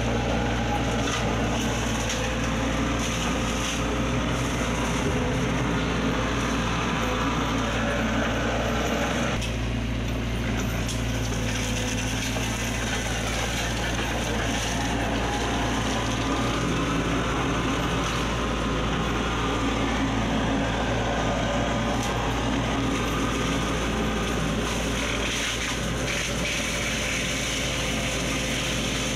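Mini excavator's engine running steadily under load while its hydraulic Kusakargon brush-mulcher head spins and shreds tangled vines and branches. The engine note changes about nine seconds in.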